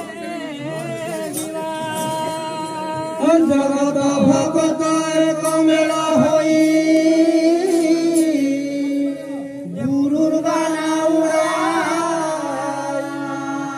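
Devotional Krustaguru bhajan singing: long, held sung notes in two long phrases, with a brief break about ten seconds in.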